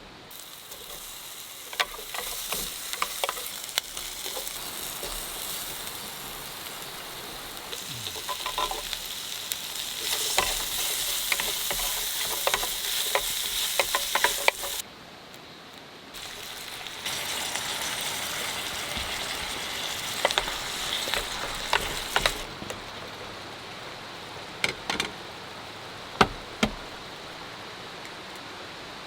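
Food sizzling in a hot pan while being stirred, with sharp clicks of a utensil against the pan. The sizzle drops away briefly about halfway through, comes back, then settles lower for the last few seconds.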